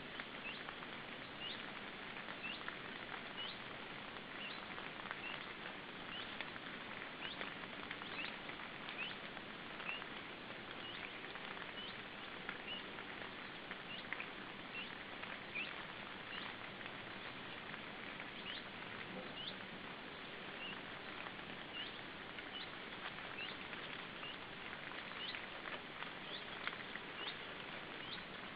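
Short, high-pitched bird peeps, one or two a second, over a steady hiss.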